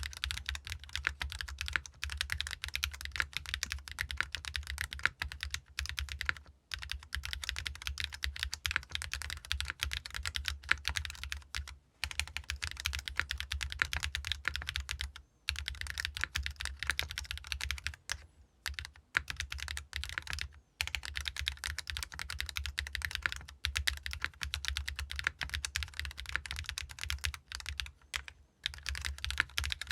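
Fast, continuous typing on a mechanical keyboard with Keygeek RAW switches, an aluminium plate with O-ring mount, no foam, and ABS double-shot keycaps. The keystrokes clatter in quick runs broken by a few short pauses.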